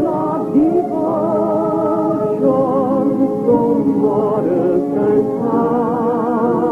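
A voice singing a slow Scottish love song, holding long notes with a noticeable vibrato and moving from note to note without a break.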